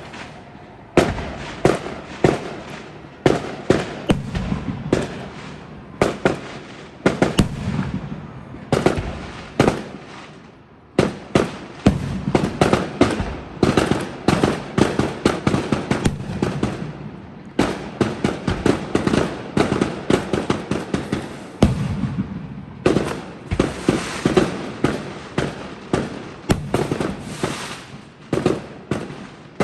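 Fireworks display: a rapid series of sharp bangs and crackles from exploding aerial shells, coming in dense volleys with short lulls about 10 seconds and 22 seconds in.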